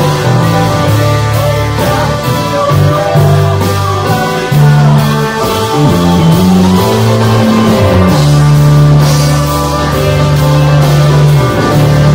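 A live band playing loud amplified music, with held bass notes and a steady drum beat under the guitar and string parts.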